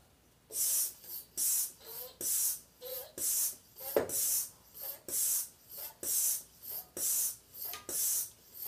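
Three-stage high-pressure hand pump being worked in steady strokes to fill a PCP air rifle's air reservoir. It starts about half a second in, with a loud hiss of air on each stroke about once a second and a shorter hiss between.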